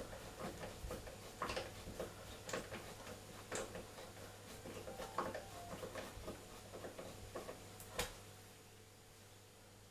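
Irregular small clicks and taps of a screwdriver and plastic washing-machine door parts being handled while the door hinge is screwed in, with one sharper click about eight seconds in, after which the clicking stops.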